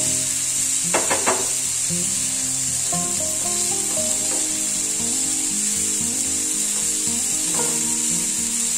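Strips of spiny gourd (kantola) sizzling in hot oil in a frying pan as they are stirred and tossed with a wooden spatula. There is a quick cluster of three spatula knocks against the pan about a second in and a lighter one near the end, over soft background music.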